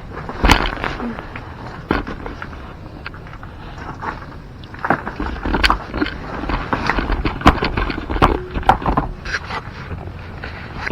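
Close handling noise: irregular knocks, clicks and rustling over a steady low rumble, busiest in the middle.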